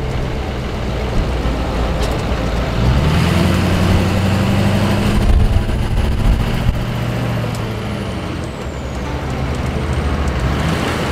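Duramax turbo-diesel engine in a Humvee, heard inside the cab at highway speed over steady wind and road noise. It pulls up in pitch about three seconds in, holds, and eases back near the end.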